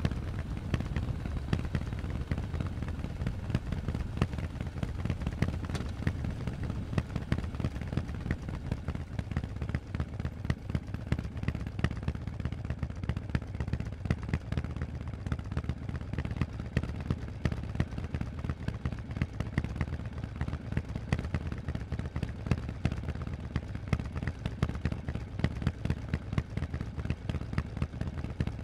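Harley-Davidson Forty-Eight's 1200 cc air-cooled V-twin running steadily through Vance & Hines aftermarket exhaust pipes. It gives a fast, even train of sharp exhaust pulses with no revving up or down.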